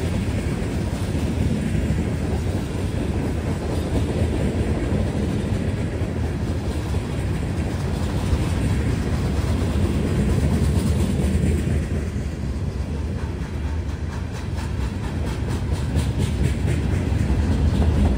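Freight cars of a Norfolk Southern train rolling past with a steady, heavy rumble of steel wheels on rail. In the last few seconds there is a quick, regular clickety-clack of wheels passing over rail joints.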